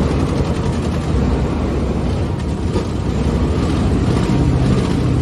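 OBS Ford pickup truck's engine running steadily after a fuel pump replacement.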